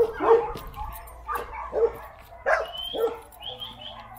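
Dogs of a pack barking, a string of short sharp barks at uneven spacing, about two a second.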